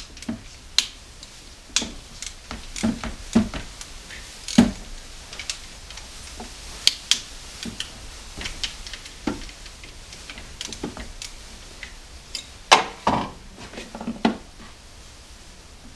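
Hand tools and metal engine parts clinking and knocking at irregular intervals as someone works at the front of a 4.6 V8 engine during timing chain removal, with the loudest knocks a little under five seconds in and near thirteen seconds.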